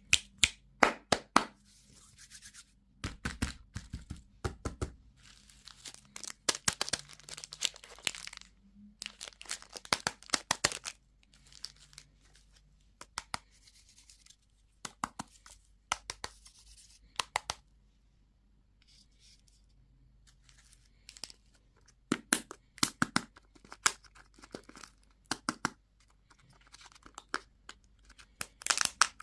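Candy wrappers being crinkled and torn open by hand, in bursts of sharp crackling with short pauses between them.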